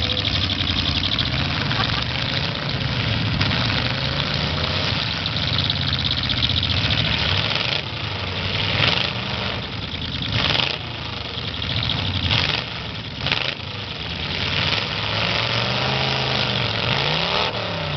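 Demolition derby car engines running and revving up and down as the cars push against one another, with several sharp bangs between about eight and thirteen seconds in.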